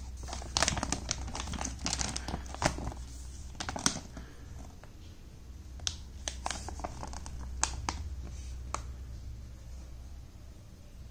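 Plastic whey-protein pouch crinkling as it is handled and turned over. A dense run of crackles comes over the first few seconds, then a few scattered crinkles follow.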